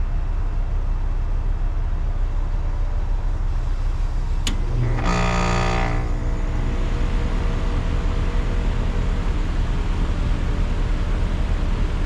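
2011 Carrier Performance side-discharge heat pump starting up in heat mode: a steady low hum, then a sharp click about four and a half seconds in followed by a loud buzz lasting about a second. After that a steady rushing of air builds and holds over the hum.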